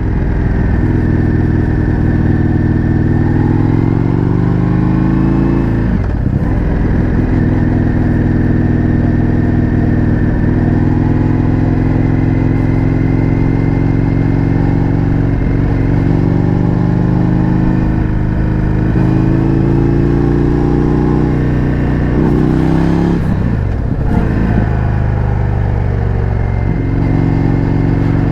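Indian FTR 1200's V-twin engine through an Akrapovič exhaust, heard on board while riding. The pitch climbs, drops sharply at a gear change about six seconds in, rises slowly for much of the time, then drops again near the end and holds steady.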